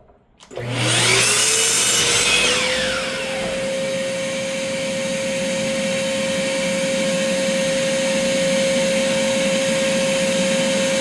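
An electric power tool's motor spins up, rising in pitch, then runs with a steady whine while it cuts through wood covered with one layer of painter's tape. A louder, rougher noise comes over the whine for the first couple of seconds.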